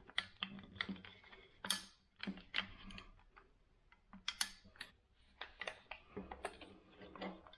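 Irregular faint clicks and light knocks of a DPMS Panther AR-15 being handled as the lower receiver is closed onto the upper and the takedown and pivot pins are pushed back in, with a few sharper clicks among them.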